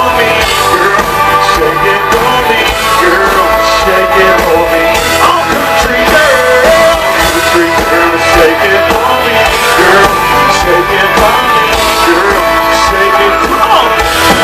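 Live country-rock band playing loudly, a full band sound with a steady beat and pitched instrumental lines running throughout.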